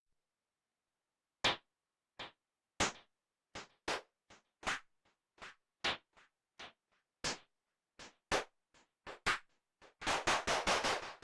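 Dave Smith Instruments Prophet 6 analog synthesizer playing a short, percussive preset: clicky, noisy hits like a drum machine, at uneven spacing after a second and a half of silence, then a fast roll of hits near the end.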